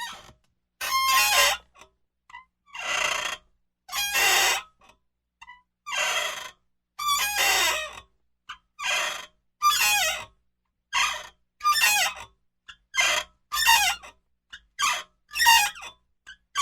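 Office swivel chair squeaking as it rocks back and forth, a short squeak of wavering pitch with each rock, roughly once a second with brief silences between.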